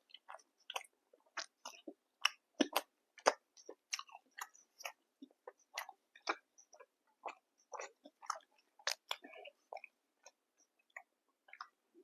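Close-miked chewing by a person eating, with many short wet mouth clicks and smacks at an irregular two to three a second, thinning out near the end.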